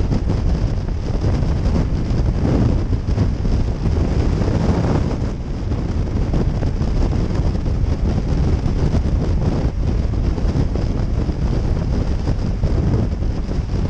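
Steady rush of wind buffeting a helmet-mounted camera's microphone on a motorcycle cruising at highway speed, with engine and road noise blended into the low rumble.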